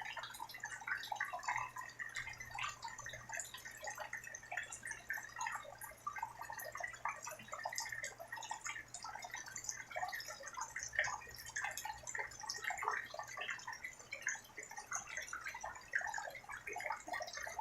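Rain falling, heard as a dense, irregular scatter of drops and drips, over a faint steady low hum.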